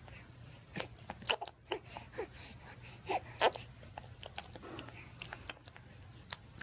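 Young baby sucking on a pacifier: soft, irregular sucking clicks and mouth smacks.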